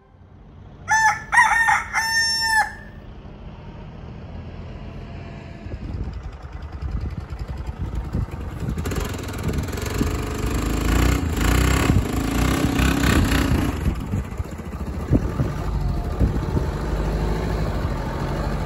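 A rooster crows once about a second in. A few seconds later a quad bike's engine starts running with a low, rough note, loudest in the middle of the stretch.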